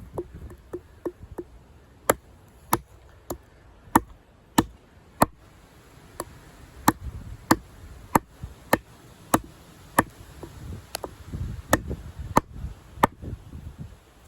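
A Condor Heavy Duty Kukri with a thick 1075 high-carbon steel blade chopping into a log, about twenty sharp blows. A few light taps come first, then heavy strikes roughly every half second or so, with a short pause about midway. Each blow bites into the wood rather than bouncing off.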